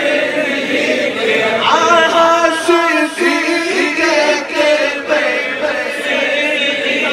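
Men's voices singing a Sufi devotional chant together, a lead singer on a microphone with the gathering joining in, the melody rising and falling in long phrases.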